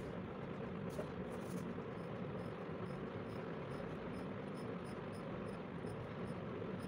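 Steady background noise with faint high ticks repeating a few times a second.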